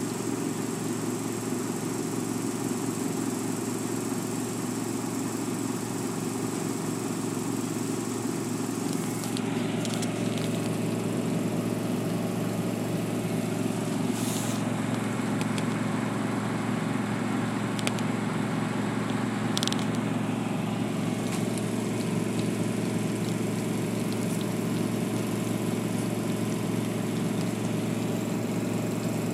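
A steady low mechanical hum, with a few brief clicks.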